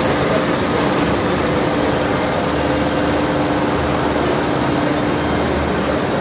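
Susmatex crochet knitting machine running at speed while knitting elastic tape: a steady, rapid mechanical clatter with a constant hum underneath.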